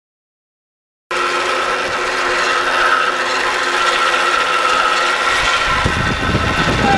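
Cable car running along its steel cable: a steady mechanical whirring grind with a held high whine, starting about a second in after dead silence. A low rumble joins in near the end.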